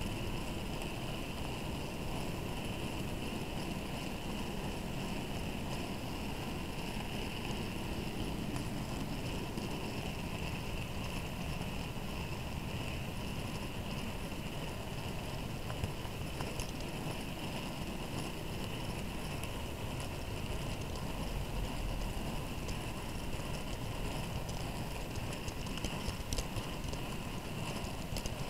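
Model railway mineral wagon rolling along the track with a camera riding in it: a steady low rumble of small metal wheels on rail, with a few faint clicks over the rail joints.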